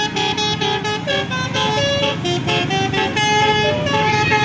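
Bus basuri telolet horn, a multi-trumpet musical air horn, playing a quick melody of short notes stepping up and down several times a second, over a steady low rumble.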